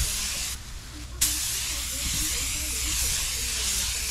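Compressed air hissing from a paint spray gun during base-coat work. The hiss breaks off about half a second in and starts again abruptly just over a second in, as the trigger is released and pulled. A steady low hum runs underneath.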